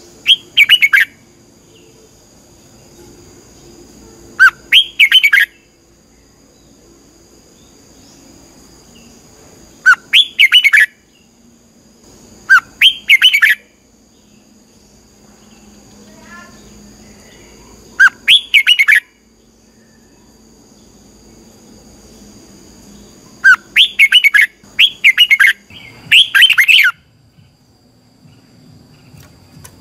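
Red-whiskered bulbul singing eight short, loud phrases of quick warbled notes, each about a second long and spaced a few seconds apart, with three in quick succession near the end.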